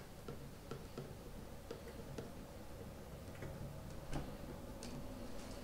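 Faint, scattered light clicks and taps of tools being handled, with one slightly louder knock about four seconds in.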